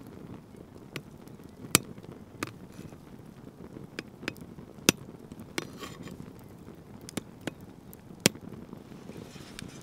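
A large knife blade tapping on the thick shell of an ostrich egg to crack it: irregular sharp knocks, three of them much louder than the lighter taps in between.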